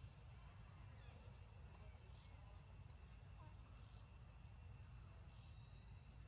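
Near silence: faint, steady high-pitched insect buzzing over a low rumble.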